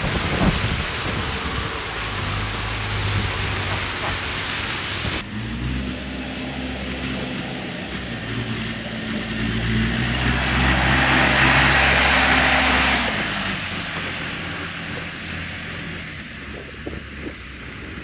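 Street traffic on a snowy road: a vehicle's engine running with a steady low hum while tyres hiss on the wet road surface, loudest about two-thirds of the way through as it passes, then fading. Wind rushes on the microphone for the first five seconds and stops abruptly.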